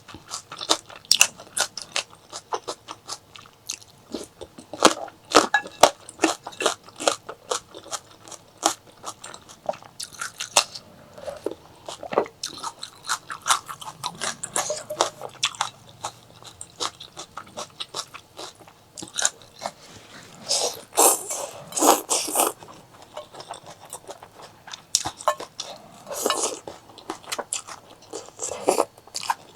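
Close-miked eating sounds: continuous irregular chewing and biting with sharp wet crunches, and a few longer, noisier mouth sounds about two-thirds of the way through.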